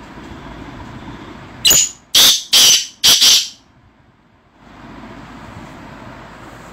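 Black francolin calling: a loud series of four or five harsh, grating notes over about two seconds, the last two running together, over a steady background hum.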